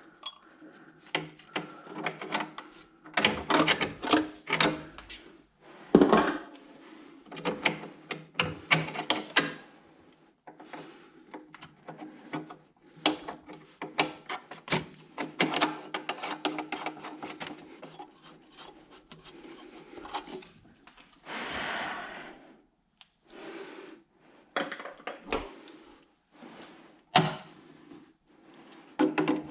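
Irregular knocking, clicking and rubbing of things being handled and moved against wood, with one longer scraping sound of about a second around two-thirds of the way through.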